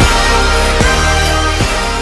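Background music with a heavy bass and a steady beat, about one strong beat every 0.8 seconds.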